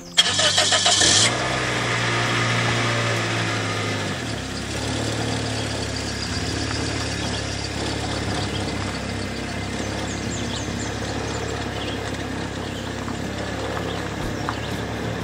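High-mileage Toyota Corolla four-cylinder engine started: about a second of starter cranking, then it catches and runs at a raised fast idle. About four seconds in it drops to a steady idle.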